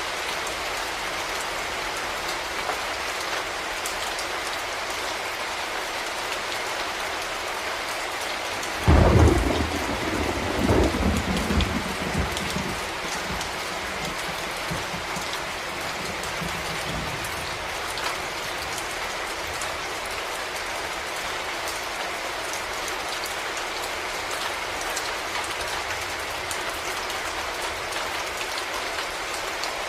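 Steady rain falling, with a sudden crack of thunder about nine seconds in that rolls on as a rumble for several seconds and then fades back under the rain.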